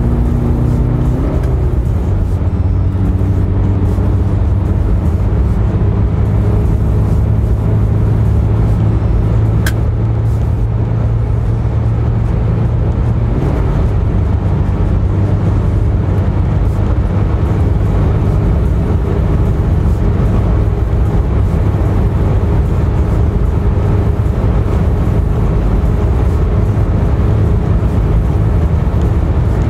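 In-cabin sound of a Tata Safari Storme's 2.2-litre four-cylinder diesel pulling hard at highway speed: a steady engine drone over road and wind noise. The engine note shifts about a second in and drops and softens about thirteen seconds in.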